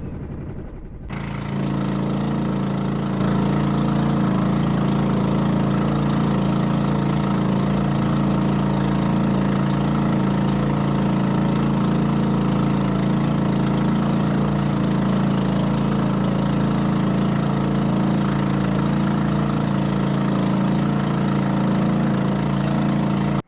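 Small boat engine running steadily at a constant speed. It sets in about a second in and cuts off abruptly.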